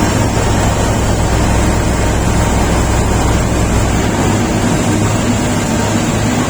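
SD32 bulldozer's diesel engine running with a steady low rumble, the deepest part of the rumble easing off about four seconds in.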